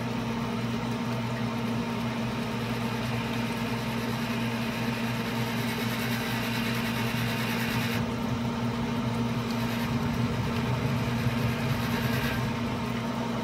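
Traeger pellet grill's electric fan motor running with a steady hum while the grill smokes, with a hiss above it that lessens about eight seconds in.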